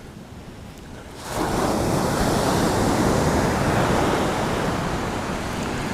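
Ocean surf: a wave breaks about a second in, and its rushing wash holds and slowly fades.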